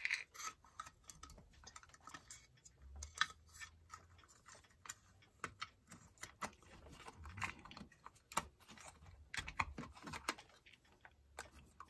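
Faint, irregular small clicks and taps of an electric wall clock's metal case back being fitted over its movement housing and pressed into place by hand.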